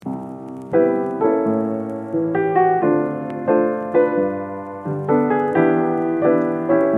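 Piano playing a sequence of chords, a new chord struck about every half second to second: the instrumental opening of a pop song.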